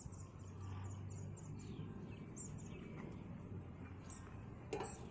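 Birds chirping now and then over a faint, steady low rumble, with one short knock near the end.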